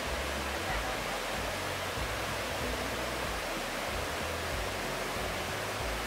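Passaic River waterfall rushing: a steady, even wash of falling and churning water.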